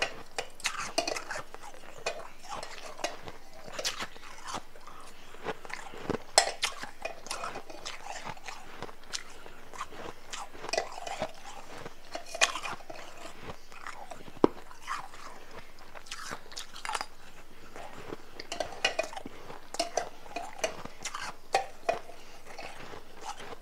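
Close-miked crunching and chewing of powdery crushed ice, in many irregular crisp bites, with a metal spoon scraping and clinking against the plastic blender jar as the ice is scooped.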